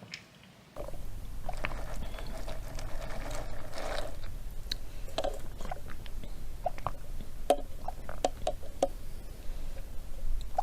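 Close-miked chewing and crunching of bamboo shoot papaya salad, with many sharp crisp crunches and wet clicks over a low steady rumble. It starts suddenly about a second in.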